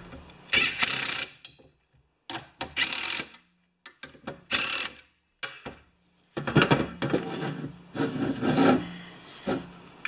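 Black+Decker cordless impact driver run in three short bursts in the first five seconds, turning the adjustment nuts on a lawn tractor's electric PTO clutch. After that, metal parts clatter and rub as the clutch is handled.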